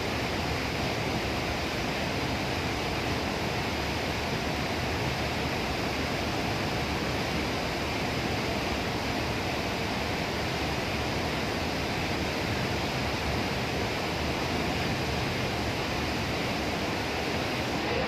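Hood-type commercial dishwasher running its cycle with the hood closed: a steady rush of spraying water that holds even throughout.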